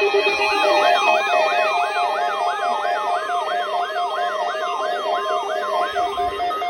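Electronic yelp siren sweeping up and down about three times a second over a bed of steady electronic tones: an alert sound in an Amber Alert broadcast. The sweeps stop shortly before the end, giving way to pulsing beeps.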